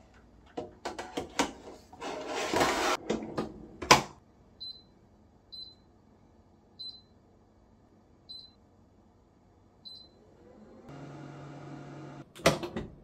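Metal tray of sweet potatoes clattering and scraping into a Corelle Seka steam air fryer, the door shutting with a loud knock about four seconds in. Then five short high beeps from its touch control panel as settings are pressed, and a steady hum as the oven starts running near the end.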